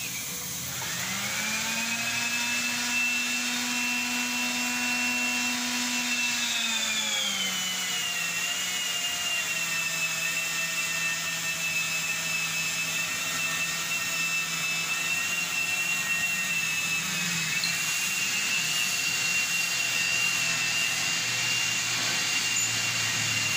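Oxy-LPG cutting torch burning through steel plate: a continuous hissing rush, with a whining tone over it that drops in pitch about seven seconds in and rises again near the end.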